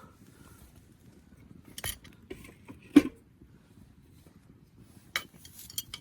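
A few sharp metallic clinks and knocks of camp utensils or cookware being handled, spaced out over several seconds, the loudest about three seconds in.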